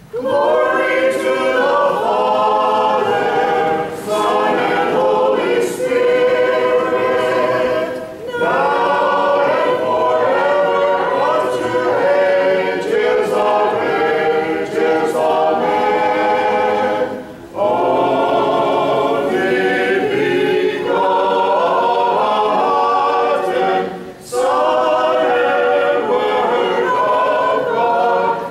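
Orthodox church choir singing liturgical chant a cappella, in long phrases broken by short breaths.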